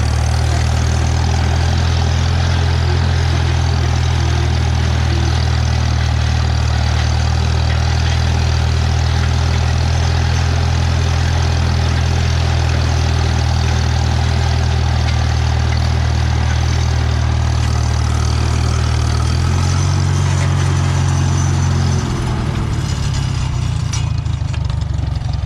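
Farmall M tractor's four-cylinder engine running steadily. Its note changes about twenty seconds in and again a couple of seconds later, when it gets a little quieter.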